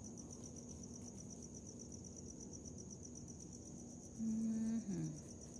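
Crickets chirping in a steady, fast, even trill. About four seconds in, a person hums a short held "mmm" that slides down in pitch at the end.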